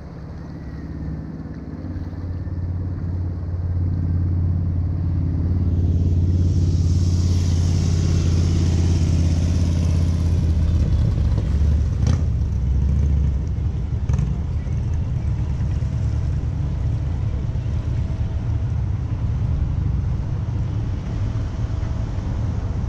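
Motor vehicle traffic on the road alongside: an engine rumble builds over the first few seconds and is loudest through the middle with a hiss on top. It then eases to a lower, steady rumble.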